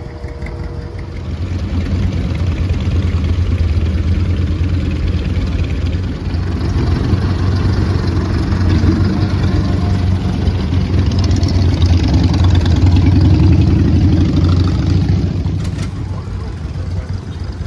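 Tractor engine running steadily. It grows louder about a second and a half in and eases back near the end.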